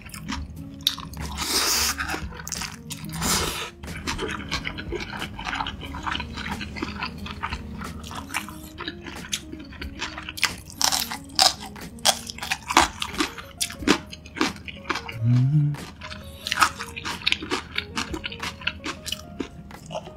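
Close-miked eating sounds: a noodle slurp near the start, then wet chewing and many crisp crunches and clicks, over quiet background music.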